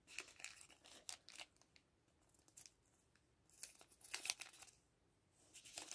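Faint crinkling and rustling of a small plastic gachapon prize bag being handled, in two short spells with a quiet gap between.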